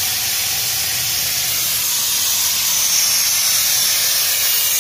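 Air-powered engine-cleaning vacuum machine running with a steady, loud hiss as it sucks through a thin metal tube. It is drawing cleaning fluid and carbon deposits out of the engine's cylinders through the spark plug holes.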